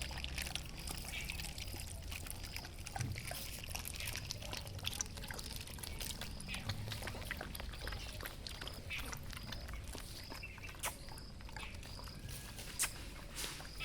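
Outdoor ambience of animals feeding: many faint scattered clicks and rustles, with a short high chirp repeating about every half second.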